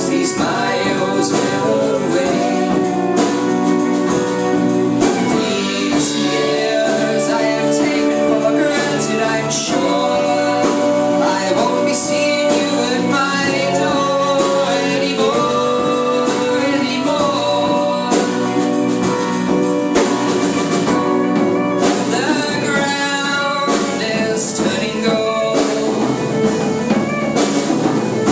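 A folk band playing live: a sung vocal over guitar and other instruments.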